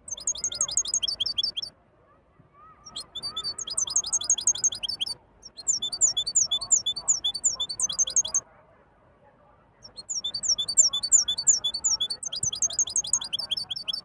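European goldfinch singing in four bursts of rapid, repeated high twittering notes, with short pauses between phrases.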